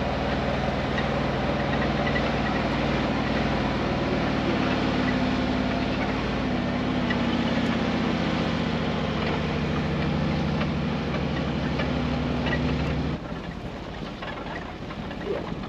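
Mercedes G-Class engine running at a steady low speed as the vehicle crawls along a grassy off-road track, over a steady rushing noise. About thirteen seconds in the engine sound cuts off abruptly and gives way to quieter rushing noise.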